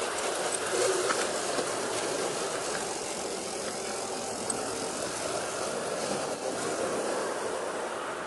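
G-scale model train running along its track through a corrugated pipe tunnel, a steady running noise of wheels and motor inside the pipe.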